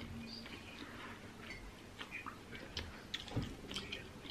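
Close-miked eating sounds: soft chewing of fried rice and chicken, with small scattered mouth clicks and ticks.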